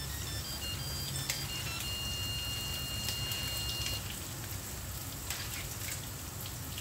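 Hot oil sizzling steadily in a wok as fried tofu is scooped out with a slotted ladle into a wire-mesh strainer over the pan, oil dripping back in. A faint electronic tune of high beeps steps along over about the first two seconds, then ends in a held beep that stops about four seconds in.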